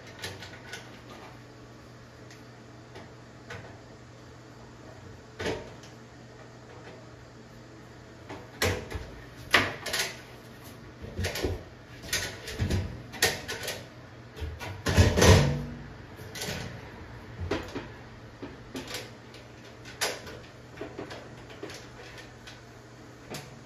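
Scattered knocks, clicks and clatter of a stainless steel sink and its metal mounting clips being handled against the underside of a plywood countertop, as the clips are pushed over their pins. The knocks come sparsely at first, bunch up through the middle, and are loudest about fifteen seconds in.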